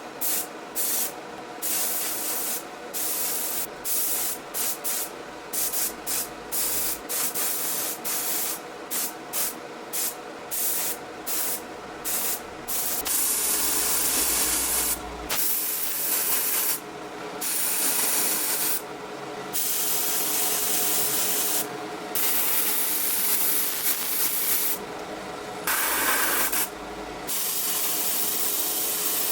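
Spray gun hissing in short on-off bursts while spraying Cerakote coating; the bursts grow longer about halfway through. A faint steady hum runs underneath.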